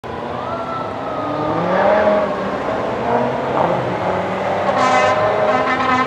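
Fire engine approaching on an emergency run: its engine and siren climb in pitch, and two blasts of its air horn sound near the end.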